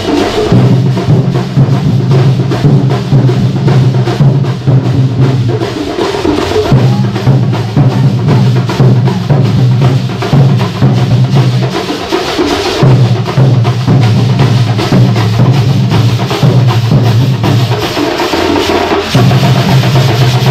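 A processional drum troupe playing a fast, dense rhythm at high volume. Under it, a steady low drone breaks off briefly about six, twelve and eighteen seconds in.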